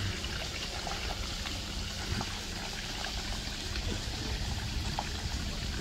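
Shallow creek water trickling steadily over flat rock ledges, with a low steady rumble underneath.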